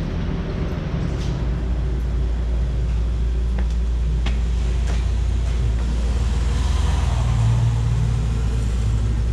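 A motor vehicle's engine idling close by: a steady low rumble, with a few faint clicks about four seconds in.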